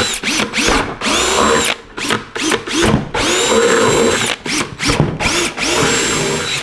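DeWalt cordless drill with a 3/8-inch bit boring holes through a plastic five-gallon bucket. The motor spins up with a rising whine and runs in several spurts, three of them a second or more long, with short trigger blips between.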